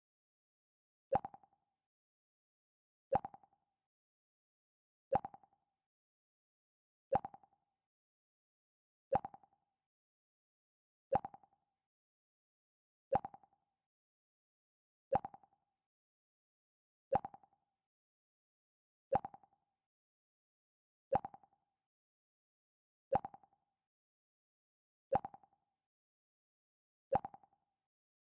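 The Mac OS X 'Pluck' alert sound playing over and over: a short, sharp plucked tone that rings briefly and dies away. It comes once every two seconds, fourteen times, with dead silence between.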